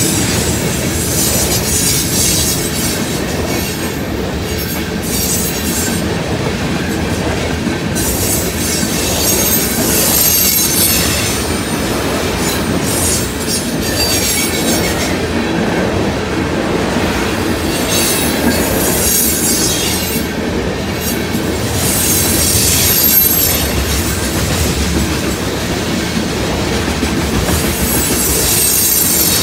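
Tank cars of a unit tanker train rolling past: a steady, heavy rumble of steel wheels on rail, with high-pitched wheel squeal that comes and goes every few seconds.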